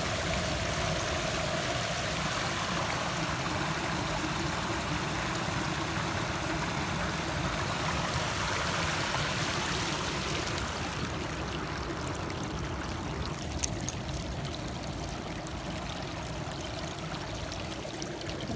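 Small creek running and splashing down a short rocky cascade: a steady rush of water, a little weaker in the second half.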